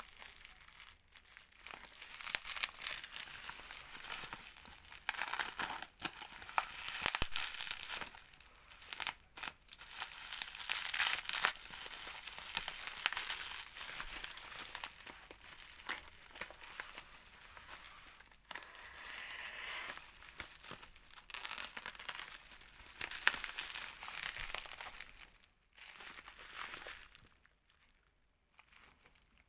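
Packaging being handled and torn open during an unboxing, crinkling and tearing in irregular spells, with a short quiet stretch near the end.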